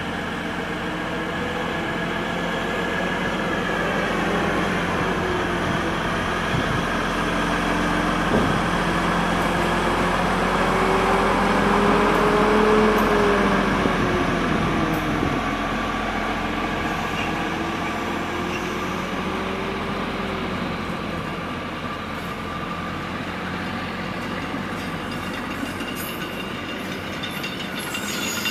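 Prameks diesel multiple unit rolling slowly past at close range: a steady rumble of engine and wheels with a wavering whine. It grows louder toward the middle, then fades a little.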